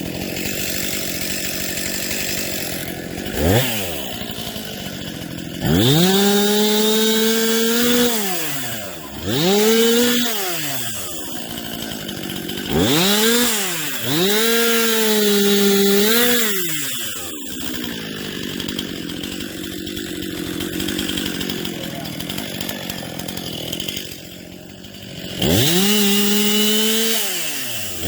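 Chainsaw revved to full throttle in four bursts, dropping back to idle between them, while cutting a hung-up tree. The first burst comes about six seconds in and the last starts near the end.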